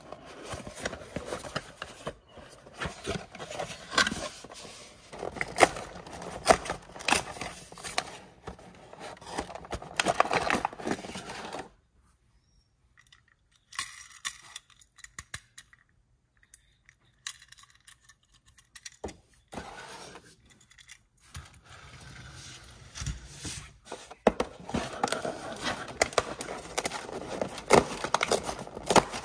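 Hands opening a cardboard toy-car box and handling die-cast metal cars: cardboard flaps scraping and rustling, with many sharp clicks and taps. It goes quieter for several seconds in the middle, with only scattered clicks, then the rustling and scraping pick up again near the end.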